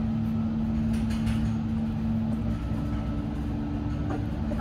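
Steady low mechanical hum with a constant pitch, with a faint short squeak about four seconds in.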